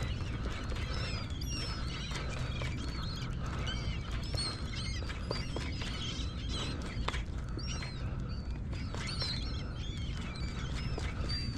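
A flock of seabirds calling over feeding fish: many short, high cries overlapping without a break, over a low steady rumble.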